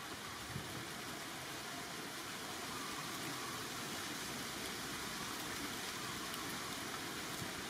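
Steady, even hiss of outdoor background noise, with no animal calls or distinct sound events.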